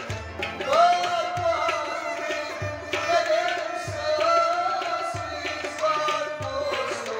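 Kashmiri folk song: a man sings long held, gliding notes over harmonium and a plucked rabab. A hand drum keeps a slow beat of low strokes a little over a second apart. The singing comes in about a second in.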